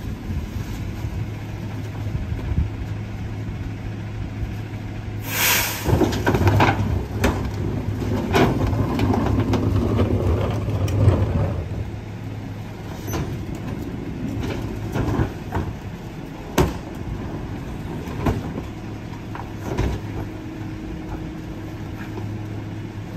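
Rear-loader garbage truck's diesel engine running with a steady hum while wheeled trash carts are tipped into its hopper. A short, sharp hiss of air comes about five seconds in, then the engine runs louder with clattering for about six seconds. A few single knocks of carts against the hopper follow in the second half.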